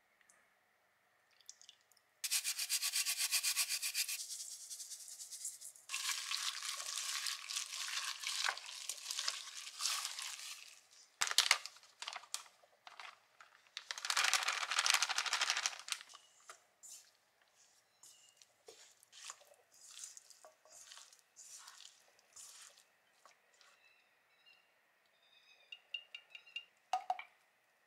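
Raw chicken pieces being worked by hand in a stainless steel bowl with marinade and then coated in flour and potato starch: several stretches of fast rubbing and squishing, followed by scattered small clicks and taps.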